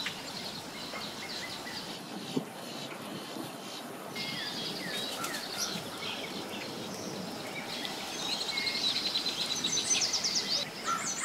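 Birds chirping and trilling over a steady low background noise, the chirping growing busier about eight seconds in.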